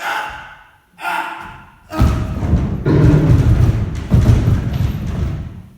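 Two short cries from a man's voice about a second apart, then a loud, deep rumbling thud-like noise for about four seconds: a staged death in a stage duel.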